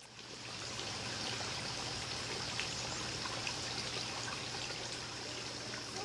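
Hummingbird nectar being poured from a jug into a feeder's reservoir: a steady trickle of liquid that starts just after the beginning and holds even.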